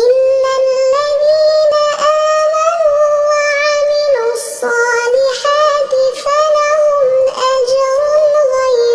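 A high voice reciting the Quran in melodic tajweed style. It holds long, ornamented notes that waver in pitch, with a few short breaks between phrases.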